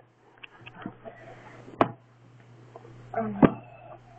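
Two sharp knocks about a second and a half apart, with faint rustling of handling, over a steady low hum.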